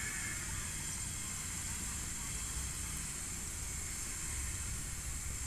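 Steady outdoor background noise: a low rumble with a constant high hiss over it, and no distinct event.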